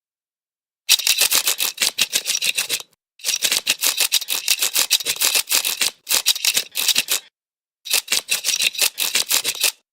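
Fish scale scraper rasping across a fish's scales in quick repeated strokes. There are four runs of scraping, the first starting about a second in, each separated by a short break.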